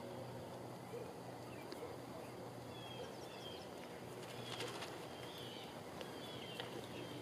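Faint open-air ambience: a steady background hum, with birds chirping a few short calls around the middle, and a few faint clicks.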